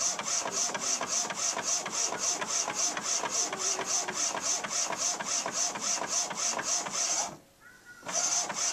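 Epson inkjet printer printing a picture: the print head shuttles back and forth with a rhythmic whirring, about four passes a second. Near the end it stops for under a second, then starts again.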